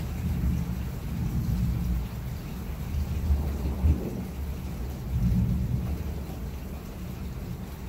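Rolling thunder, a low rumble that swells and fades several times, over a faint hiss of rain.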